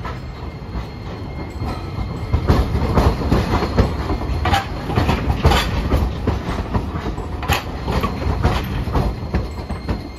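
Hiroden 5100-series Green Mover Max low-floor tram running past at close range. Its wheels rumble and give a run of irregular clacks and knocks over the rail joints and switches, starting about two seconds in.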